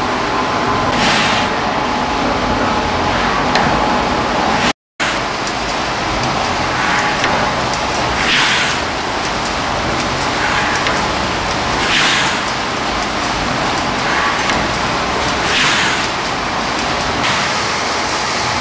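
Horizontal veneer slicing machine running, a steady mechanical noise with a brighter swish every two to four seconds as the slicing strokes repeat and thin veneer sheets come off the wood flitch.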